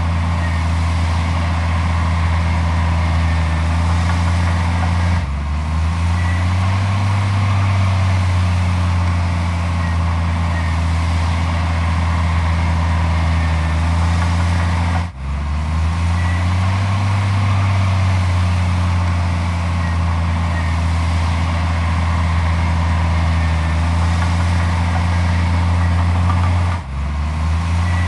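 Heavy diesel construction machinery running steadily at a constant low pitch. Three brief dips come about ten seconds apart, each followed by a short rise back to the same drone.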